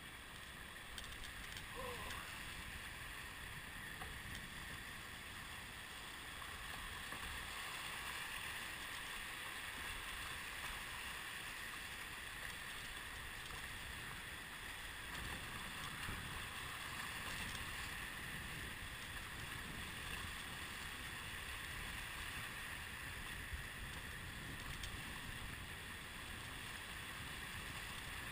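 Whitewater rapids rushing steadily around a small boat running a wave train, a continuous hiss of broken water over a low rumble.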